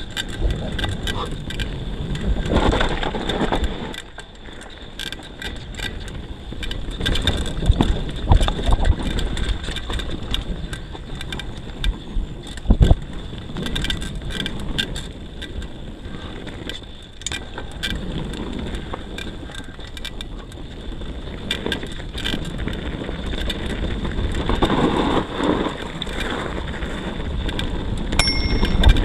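YT Tues downhill mountain bike rolling down a dirt singletrail: tyres running over dirt and roots, with the chain and frame rattling and many sharp knocks from bumps, one loud knock about halfway through. Wind noise on the microphone builds near the end as the speed picks up.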